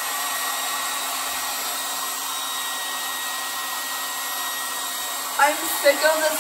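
A steady rush of air with a faint motor hum, like a small electric blower running, holding an even level throughout. Voices break in over it about five seconds in.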